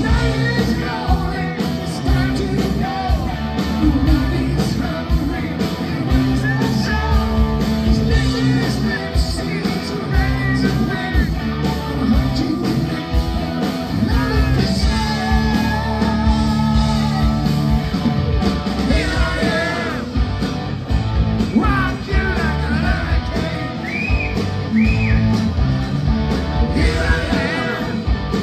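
Live rock band playing: electric guitars and drums with a lead singer over them, loud and steady throughout.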